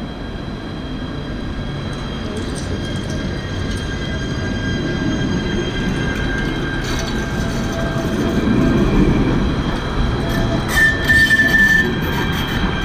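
Alstom Citadis 302 tram approaching and passing close by, its wheels rumbling on the rails under steady high whining tones, growing louder as it draws level. A short high squeal comes about eleven seconds in.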